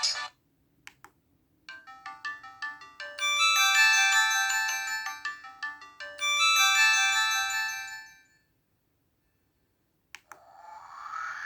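Samsung SPH-A790 ringtone played by its Yamaha SMAF polyphonic sound chip: a short melody of bright, clean notes, played through twice before it stops. Near the end the next ringtone begins, a swelling synth sound.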